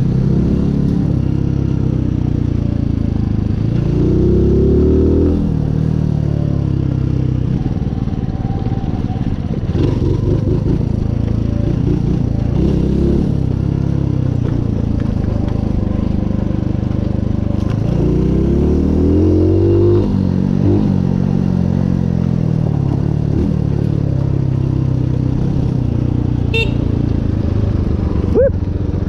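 Mutt motorcycle's single-cylinder engine running off-road, its revs rising and falling several times as the throttle is opened and closed over the rough trail.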